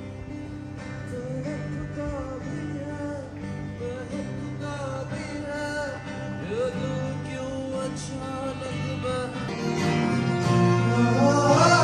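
Live music: a singer with guitar accompaniment, the melody gliding over steady low notes, growing louder about ten seconds in.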